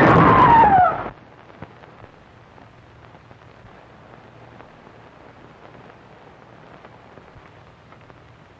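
Loud rifle volley from a firing squad with a shout over it, cutting off sharply about a second in. After it, only the faint steady hiss and crackle of an old film soundtrack.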